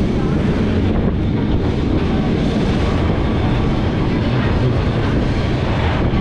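Vintage Lisbon tram running along its track: a steady rumble of steel wheels and running gear on the rails, with wind buffeting the microphone.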